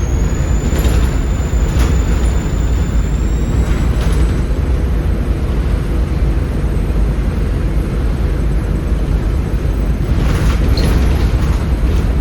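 Volvo B7RLE bus's 7.3-litre Volvo D7C diesel engine running hard, a loud steady low rumble. A high turbo whistle rises at the start and then holds steady, with a few knocks and rattles now and then.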